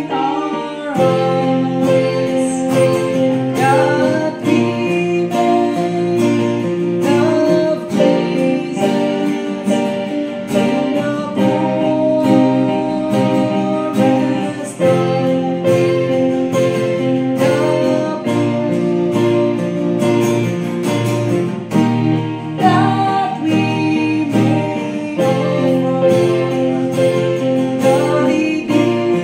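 A woman singing a song over her own steady acoustic guitar strumming, with an electronic keyboard playing held chords along with them.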